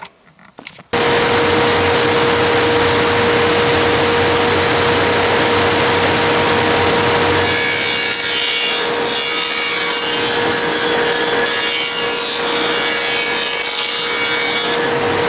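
A power saw starts abruptly about a second in and runs steadily with a constant hum. From about halfway on, the blade is cutting wood, adding a harsher, hissing sound as it cuts a rabbet along the bottom edge of a drawer piece.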